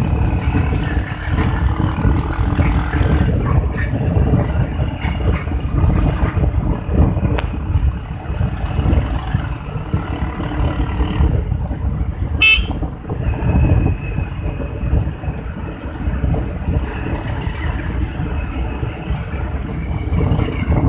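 Wind rushing over the microphone of a moving Honda CD 70 motorcycle, with its small single-cylinder engine running underneath. A short vehicle horn toots once, about twelve seconds in.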